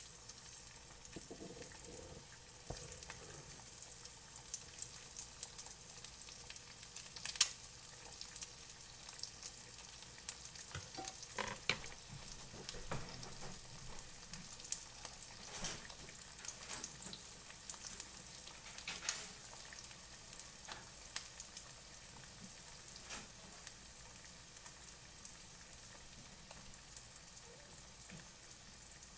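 Eggs frying in bacon grease in an electric frying pan: a steady sizzle broken by scattered sharp pops of spattering fat.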